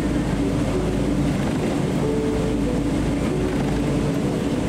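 Cabin noise inside a Boeing 777-300 taxiing on the ground: a steady low rumble from the airframe and engines at taxi power, with a few faint held tones and no change in loudness.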